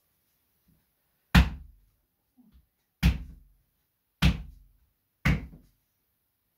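Four sharp thumps, one to one and a half seconds apart, as a manual therapist's hands strike down on a patient's lower back in a percussive spinal-correction technique. Each blow dies away within about half a second.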